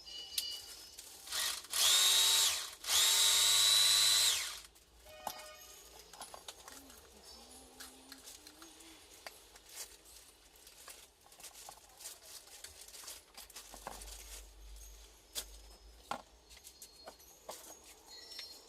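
Small electric power tool whining in two short bursts, a little over a second each, followed by light scattered clicks and taps of tools and parts being handled.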